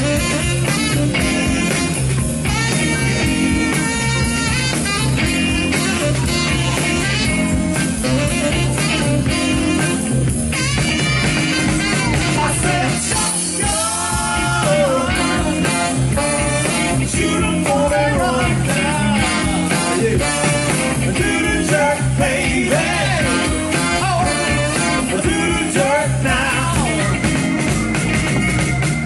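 Live soul band playing an upbeat, danceable groove over a steady drum and bass beat, with a saxophone taking sliding, wailing lead lines.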